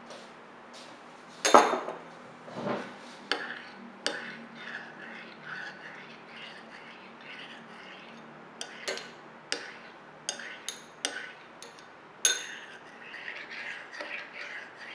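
Metal teaspoon clinking and scraping against small ceramic bowls while stirring gelatin water to check that the powder has dissolved: a string of sharp clinks, the loudest about a second and a half in.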